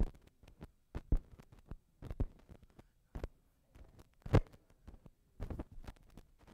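Microphone handling noise: a run of irregular dull thumps with rustling between them, the loudest about four seconds in.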